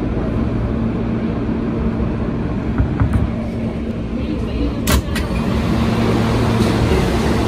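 Kawasaki R160B subway train with Siemens propulsion running: a steady low rumble with a constant hum, and a few sharp clicks and knocks, the strongest about five seconds in.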